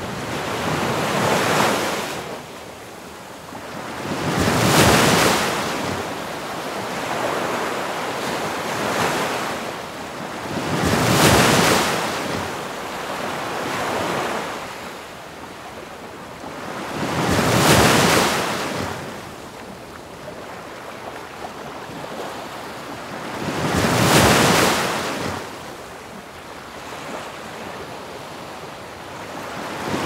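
Ocean surf: waves breaking, each one swelling to a crash about every six and a half seconds, with a steady hiss of washing foam between them.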